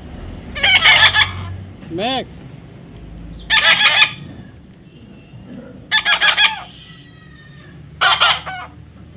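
A parrot squawking loudly: four harsh, rasping calls, each about half a second long and coming roughly every two and a half seconds.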